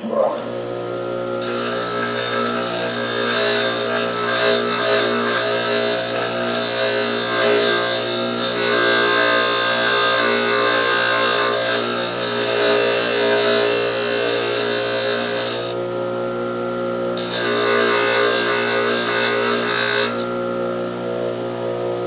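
Bench polishing machine switched on and running with a steady motor hum, while steel pliers are held against its spinning fiber wheel, giving a grinding hiss. The hiss stops twice for a second or two near the end as the work is lifted off the wheel, while the motor keeps running.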